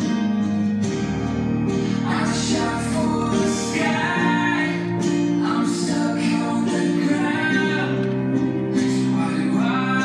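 Recorded tango song: a singer's melody over held accompanying chords that change every second or two.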